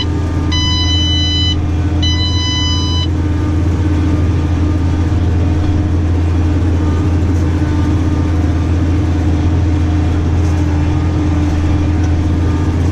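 New Holland tractor engine running steadily while driving, heard from inside the cab. An electronic beeper in the cab sounds two long beeps, about a second each, in the first three seconds.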